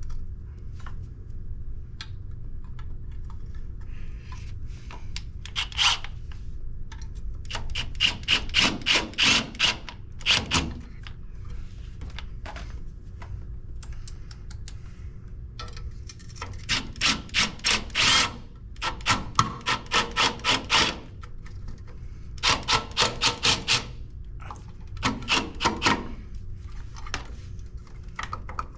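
Hand file or rasp worked back and forth to shave material down, in runs of several quick strokes at about four a second with short pauses between runs.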